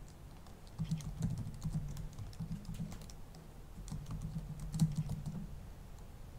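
Light keystrokes on a computer keyboard, a scattering of faint clicks as a password is typed in at a sudo prompt.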